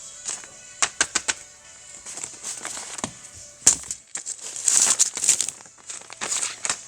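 Background music under a run of sharp clicks and short rustling bursts from small plastic fidget toys being handled, with the loudest handling just past the middle.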